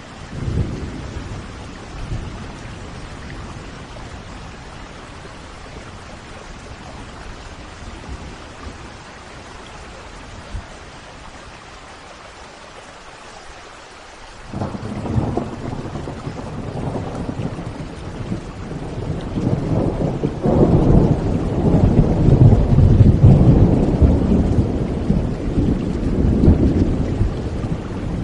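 Steady rain with rolling thunder. A long, deep rumble of thunder starts about halfway through, builds to its loudest in the last third, and eases off near the end.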